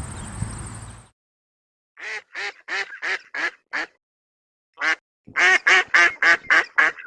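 A duck quacking in quick series: six quacks, a single one, then a faster run of about eight. Before that, an outdoor background with a high steady insect buzz runs for about a second and cuts off.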